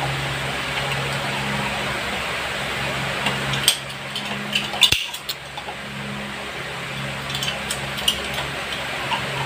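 Light clicks and knocks of plastic pipe fittings and a metal wrench being handled while a float ball valve is put together, in two short clusters, over a steady background hum.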